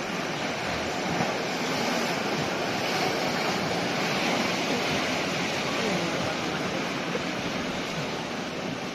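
Steady rushing and sloshing of floodwater as cars drive through a flooded street, their wheels pushing up waves.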